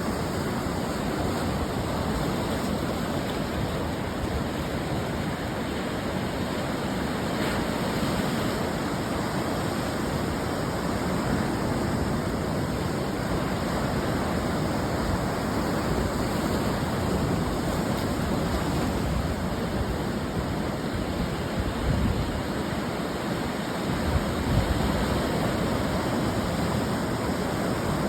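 Ocean surf washing onto the shore: a continuous rushing noise that swells slightly a few times as waves break.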